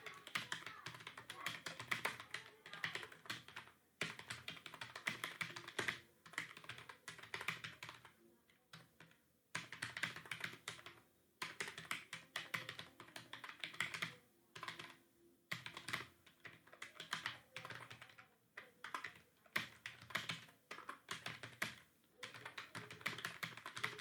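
Fast typing on a computer keyboard: dense runs of key clicks broken by several short pauses.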